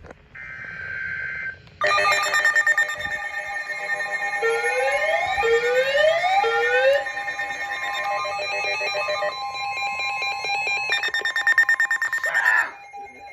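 NOAA Weather Radio receiver alerting for a severe thunderstorm warning: a short buzzy burst, then a loud alarm of several overlapping pulsing beeps and steady tones, with three rising sweeps in the middle. It cuts off shortly before the end.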